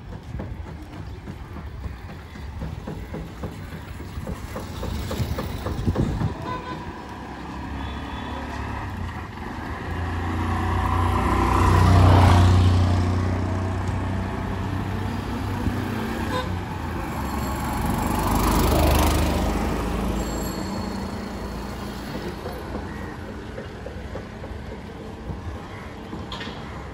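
Road traffic, with two motor vehicles passing close by, one about twelve seconds in and another about nineteen. Each one's engine rumble swells and then fades over a steady background of street noise.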